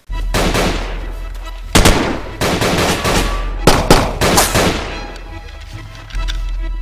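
Pistol gunshots, several sharp shots over the first five seconds, laid over a music score with a steady low drone. Sustained musical tones take over near the end.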